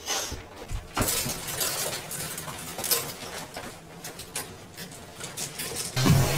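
Clothes and wire hangers being handled in a closet: rustling with scattered clicks and clinks.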